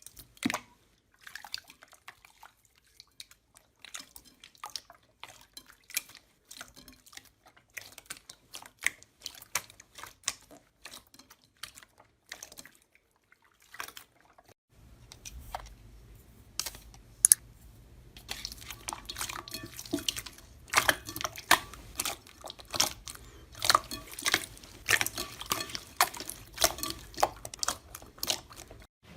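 Slime being worked by hand, giving a long run of short, sticky clicks and pops. About halfway through the background changes, with a low hum underneath, and the clicks come faster and louder.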